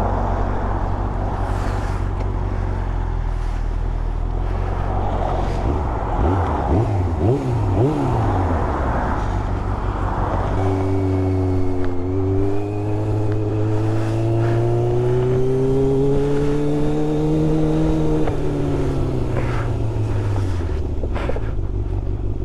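A 1996 Yamaha YZF600 motorcycle's inline-four engine. It runs steadily low at first, then the revs rise and fall quickly a few times. From about halfway it revs up smoothly for several seconds and then rolls off, with a rushing noise underneath.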